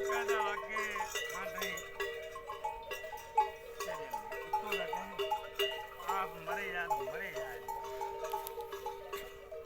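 Livestock neck bells clinking in a steady rhythm as the animals walk. Three wavering bleats or calls rise over them.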